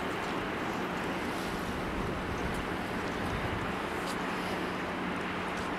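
Cessna 172S Skyhawk's four-cylinder Lycoming engine and propeller at full takeoff power, heard from a distance as a steady drone under a constant rushing of wind on the microphone.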